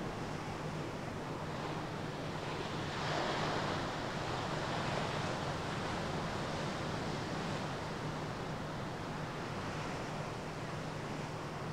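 Sea surf washing in with wind. One wave swells up about three seconds in, over a steady low hum.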